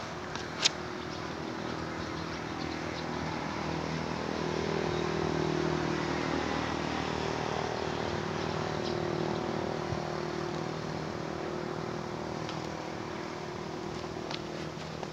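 Engine of a passing motor vehicle, a steady hum that grows louder over several seconds and then fades again; a sharp click about half a second in.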